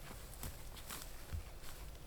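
A few irregular, soft footsteps or hoof-steps on the ground, heard as scattered short knocks.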